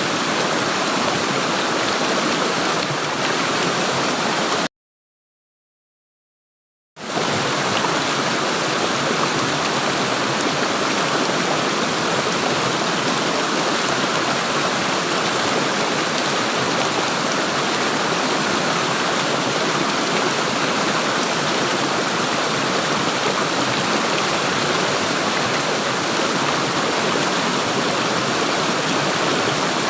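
Gurgling, rushing flowing water, a steady even wash of water noise. About five seconds in it cuts out to dead silence for roughly two seconds, then the water resumes unchanged.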